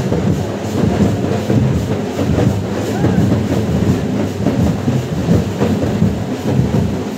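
Dense hubbub of a large crowd, many voices mixed together, over a continuous low rumble.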